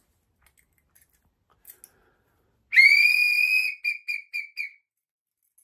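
A hand-held whistle blown with one long blast of about a second, rising slightly as it starts, then four short quick blasts.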